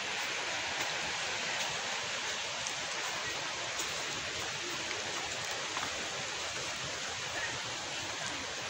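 Steady rush of river rapids: an even hiss of flowing water.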